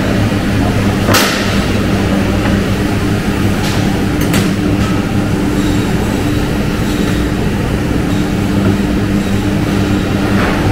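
Steady, loud hum of factory machinery, a low drone with a few steady tones, with a few short knocks and scrapes of knives working pork ribs on a plastic cutting table.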